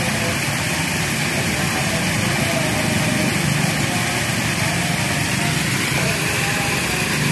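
Steady rushing hiss of flowing river water, with faint voices in it.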